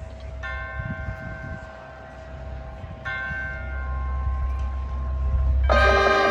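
Church-bell-like tones, struck twice about two and a half seconds apart and left ringing, over a low rumble that swells in loudness. Near the end the marching band comes in with a loud sustained chord.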